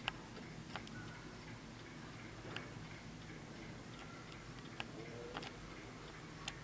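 A c.1855 French Vincent miniature mantel clock ticking as its pendulum swings. The ticks are faint, with a few standing out louder, over a low background hum.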